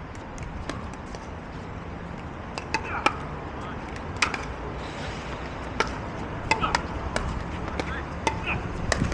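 Pickleball rally: a string of sharp pops as paddles hit the hard plastic ball, irregularly spaced and clustering into quick exchanges about three seconds in, around six to seven seconds, and near the end. Players' voices are faint underneath.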